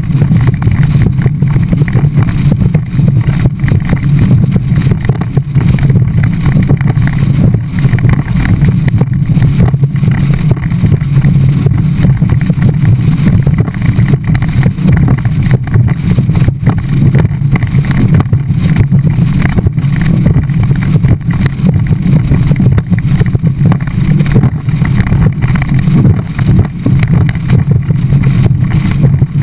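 Skeeter bass boat's outboard motor running steadily at speed across choppy water, loud, with wind buffeting the microphone.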